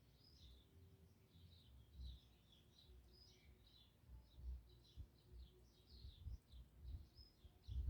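Faint birds chirping over and over in the background, with soft low bumps from handling near the microphone.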